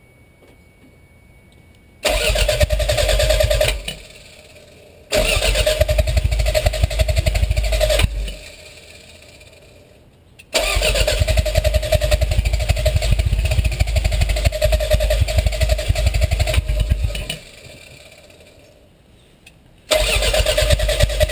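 Toyota MR2 Turbo's 3S-GTE four-cylinder engine being cranked by the starter motor in four separate attempts, the third the longest, without firing: a no-start condition.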